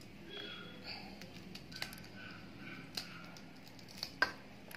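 Kitchen knife cutting raw green chillies held in the hand, a few sharp clicks as the blade snaps through the chilli against the thumb.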